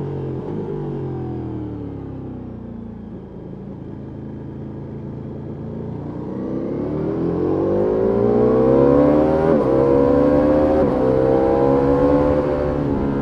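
Ducati Multistrada V4S's V4 engine through an Akrapovic exhaust, heard from the rider's position: the engine note falls as the throttle is closed, then rises again under hard acceleration about six seconds in. The note holds high with two brief breaks, and it drops near the end.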